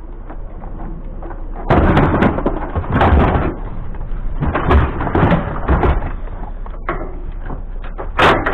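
Thuds, scrapes and clanks of a small air-conditioner unit being carried over and loaded onto a scrap trailer, with a sharp metal bang near the end.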